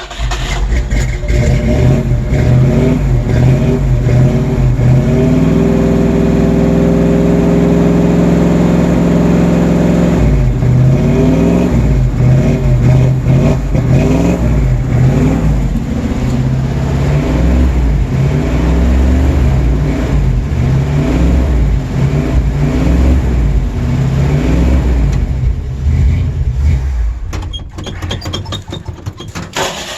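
Old Ford Bronco engine catching on a cold start and being held at a fast rev, then revved up and down over and over as the throttle is pumped to keep it running. Near the end the engine speed falls away.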